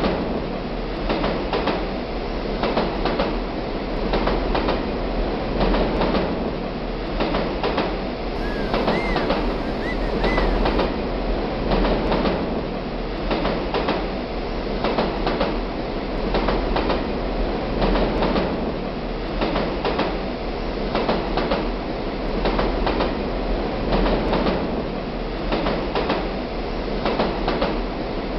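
Continuous loud mechanical clatter over a dense rumble, with rapid ticking and a slow, even swell in loudness.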